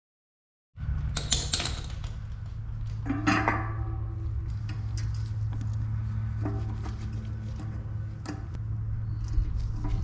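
Light metallic clinks and taps of a steel disc brake rotor and screwdriver as the rotor is fitted and its bolts are driven into the wheel hub, with a cluster of clinks about a second in and again about three seconds in. A steady low hum runs underneath.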